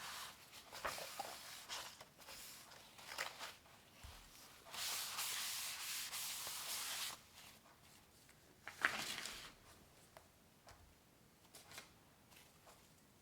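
A drawing tool scratching and rubbing on paper in short strokes, with one long stroke of about two seconds near the middle and a sharp tap a little later.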